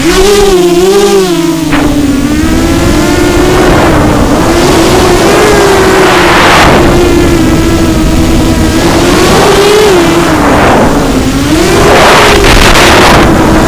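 QAV250 racing quadcopter's motors whining in flight, the pitch rising and falling over and over as the throttle changes, over a rough rushing noise.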